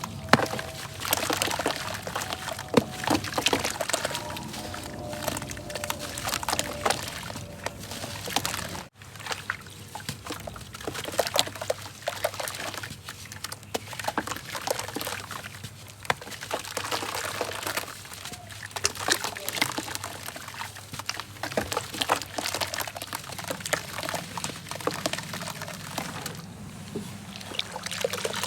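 Golden sand crumbling into water: a dense run of crackles and trickling, pouring water, with a brief break about nine seconds in.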